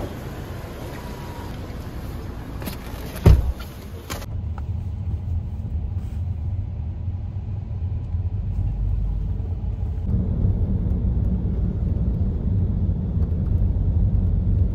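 Outdoor street noise with a sharp thump about three seconds in, then the low, steady rumble of a taxi driving, heard from inside the car's cabin, slowly growing louder.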